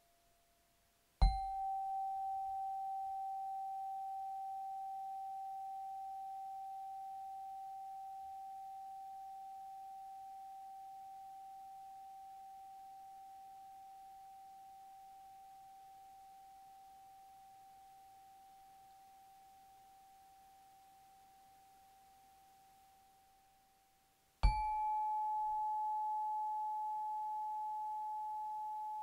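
Chakra chimes, tuned metal tubes on a wooden stand, struck one at a time. Each strike leaves a single pure tone that rings on and fades slowly. The first comes about a second in and the second, slightly higher, near the end, as the notes move up the chakras.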